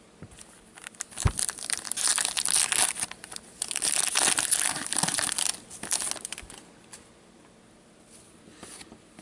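Hockey card pack wrapper being torn open and crinkled by gloved hands, a dense crackling rustle from about a second in to about six seconds, then quieter handling of the cards.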